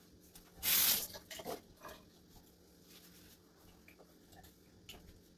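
Bathroom sink being wiped down by hand: one short hiss about a second in, then faint small clicks and rubbing.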